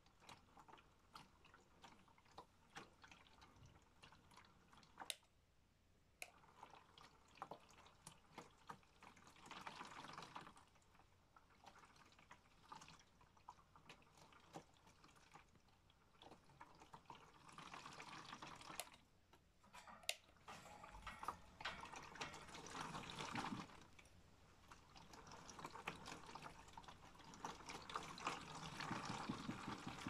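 Faint water sloshing and dripping in the water-filled drum of a modified Miele W1 toy washing machine during a rinse. There are scattered small clicks, and swells of splashing come and go every several seconds, growing louder near the end.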